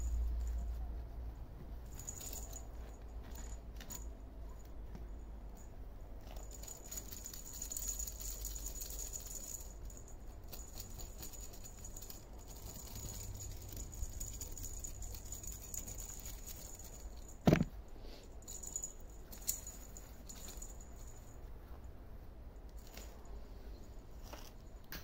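Kittens playing with small plastic toy balls and a feather wand in a box: faint scattered rattles and clicks, with one sharp knock about seventeen seconds in.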